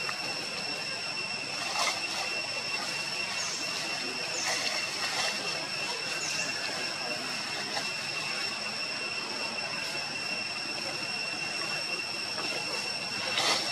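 A steady high-pitched drone over a constant hiss, with a few short, high falling chirps near the middle and a couple of faint clicks.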